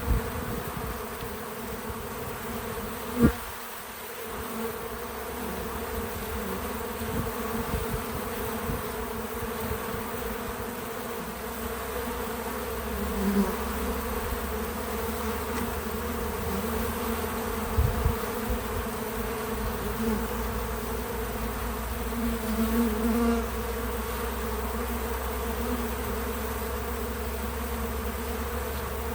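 Many bees buzzing steadily around a feeder, a continuous layered hum. A single sharp click cuts through about three seconds in.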